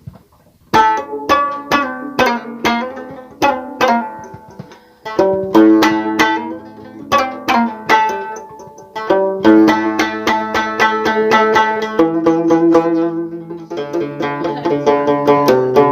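Instrumental opening of a song on bright, banjo-like plucked strings. A picked melody starts about a second in, and a fuller strummed accompaniment with a low sustained part comes in partway through.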